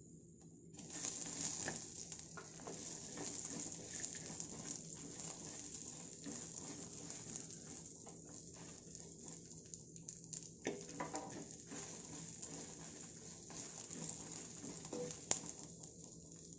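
Shallots, garlic and whole spices sizzling and crackling in a little oil in a clay pot, starting about a second in, with a wooden spatula stirring and scraping through them and a few sharper ticks along the way.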